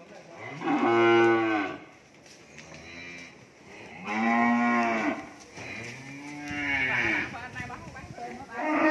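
Cattle mooing repeatedly: four long calls, each rising and then falling in pitch, the loudest about a second in and a fainter one near three seconds, with a fifth starting near the end.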